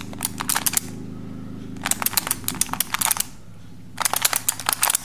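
Plastic Skewb puzzle clicking as its corners are turned quickly by hand, in three quick bursts of rapid clicks.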